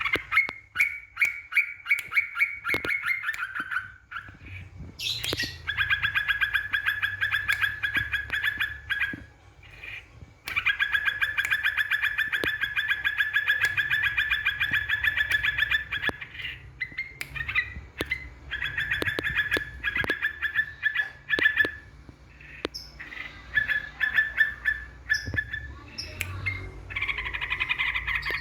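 Yellow-vented bulbul (trucukan) song used as a lure: long runs of fast, repeated chattering notes lasting several seconds each, broken by short pauses.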